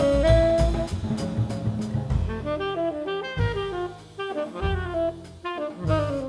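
Small jazz trio playing live: tenor saxophone carrying a stepping melody over double bass and drum kit. Ride cymbal and drum strokes are busy at first, then thin out after about two seconds, leaving the saxophone over long bass notes.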